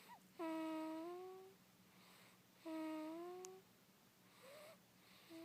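Long hummed moans made in sleep: two drawn-out, steady-pitched ones of about a second each, each bending up slightly at the end, then a shorter rising one and a brief start near the end.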